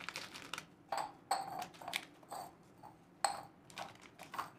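Scissors snipping through a plastic biscuit wrapper: a run of sharp snips, each with a brief metallic ring, after a little wrapper crinkling at the start.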